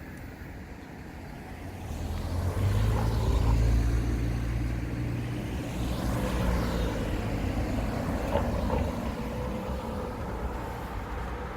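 A car passes close by. Its engine hum and tyre noise build about two seconds in, peak soon after, then fade away gradually.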